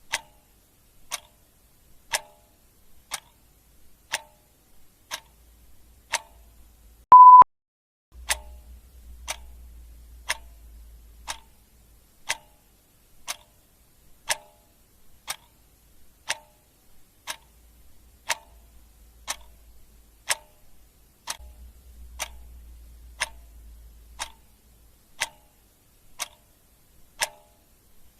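Clock ticking evenly, about once a second, with a single short beep, the loudest sound, about seven seconds in.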